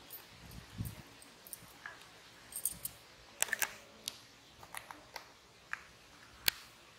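Scattered sharp clicks and light taps, a dozen or so at uneven intervals, with a soft low thump about a second in and the sharpest click near the end.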